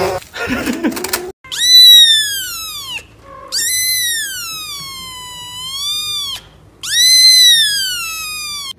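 A kitten mewing loudly three times: long, high-pitched cries, the middle one about three seconds long, dipping in pitch and rising again. A brief burst of noise comes before the first cry.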